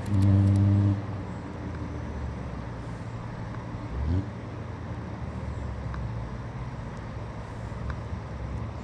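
A motor vehicle's engine running with a steady hum, louder for the first second, with a brief rising rev about four seconds in.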